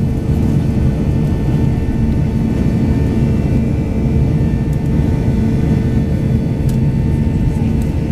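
Boeing 737-800 cabin noise during the climb after takeoff: a loud, steady rumble of the CFM56 engines and airflow, with a constant hum running through it.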